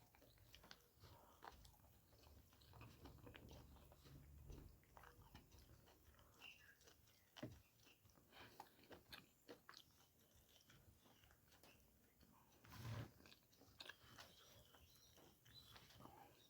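Faint, close-up chewing and mouth sounds of someone eating spicy pork curry with rice: many small wet clicks and smacks. There is a louder, fuller sound about 13 seconds in.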